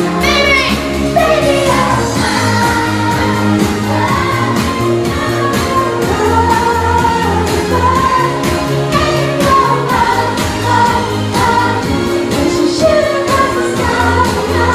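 A woman singing a pop song live over a backing track with a steady beat and bass.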